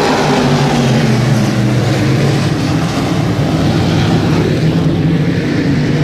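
Dirt sportsman modified race cars running on a clay oval, their engines making a loud, steady drone.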